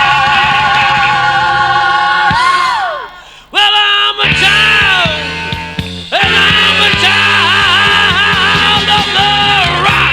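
Rock music with a singer holding long, wavering notes over the band. The sound dips briefly twice, then stops abruptly at the end.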